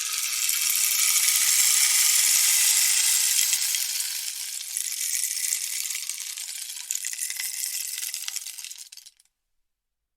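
Rainstick: a cascade of small beads or pebbles trickling down through the tube, a dense patter of tiny clicks that swells in, holds, then slowly thins out and stops about nine seconds in as the fill runs out.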